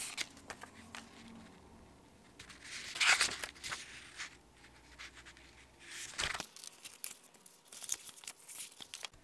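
Pages of a thin, textured paper notebook insert being flipped and handled: paper rustling and rubbing with light clicks, loudest about three seconds in and again around six seconds.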